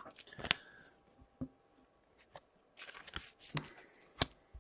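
Trading cards being handled: scattered light clicks, taps and brief rustles as cards and their plastic holders are shuffled.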